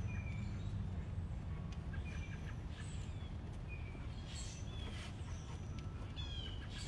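Outdoor ambience: small birds chirping and calling in short scattered notes over a steady low rumble.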